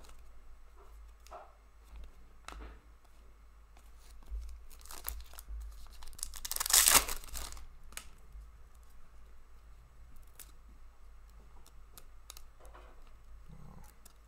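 A trading card pack's wrapper torn open with one loud rip about seven seconds in. Around it come soft clicks and rustles of trading cards being slid and flipped through by hand.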